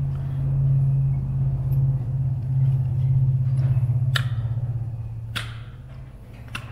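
Rotax 914 oil pump housing smacked against a palm, giving three sharp knocks about a second apart in the second half, to jar loose a rotor held fast by sticky oil. A steady low hum runs underneath and fades toward the end.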